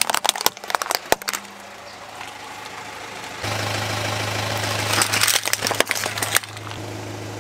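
Hard plastic toys cracking and snapping under a car tyre, in two bursts of sharp snaps. A car engine idles as a steady low hum from about halfway through.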